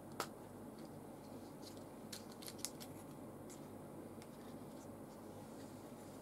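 Plastic lens filter case being opened and handled by hand: a sharp click just after the start, a quick cluster of clicks around two seconds in, then fainter ticks as the filter is taken out.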